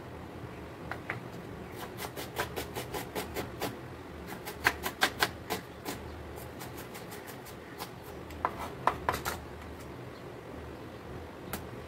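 Kitchen knife chopping onion on a wooden cutting board: quick runs of knocks, several a second, from about two to six seconds in, and another short run near nine seconds.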